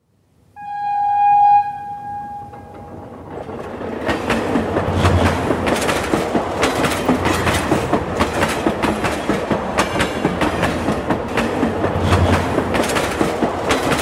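A train horn sounds one steady note for about two seconds and fades. Then a train runs past with a loud, steady clatter of wheels clicking over the rail joints.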